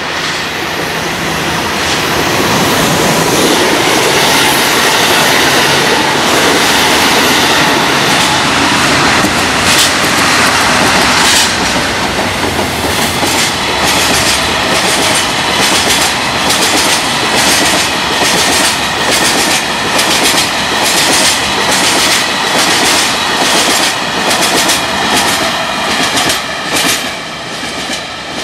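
A DD51 diesel-hydraulic locomotive passes close by, its twin diesel engines running loud. It is followed by a long string of oil tank wagons whose wheels clack over the rail joints, about two knocks a second, easing off near the end as the train draws away.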